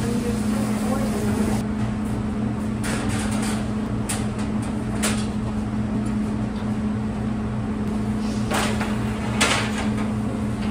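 Steady low machine hum with about half a dozen scattered knocks and clacks of equipment being handled.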